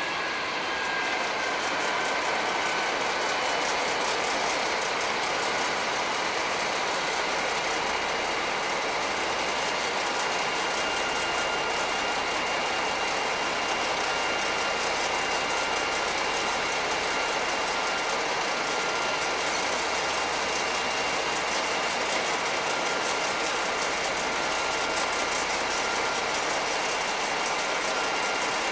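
Stationary V 160-family diesel locomotives, a red DB class 218 among them, idling: a steady engine and cooling-fan noise with a faint, thin, high whine.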